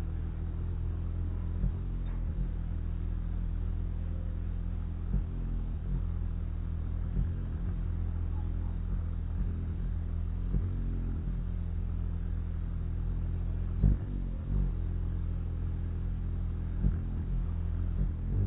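A hummingbird's wings humming steadily as it hovers close at a nectar feeder, a low drone with a few brief taps along the way, the clearest about 14 seconds in.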